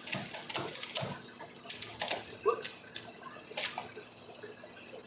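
Husky ratchet tie-down strap being cranked tight, its pawl clicking in quick runs over the first two seconds, then a few single clicks as the strapping slows.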